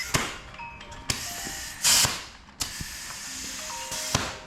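Several sharp clicks and knocks from hands-on work on a tire, with one short, loud burst of hiss about two seconds in, over faint background music.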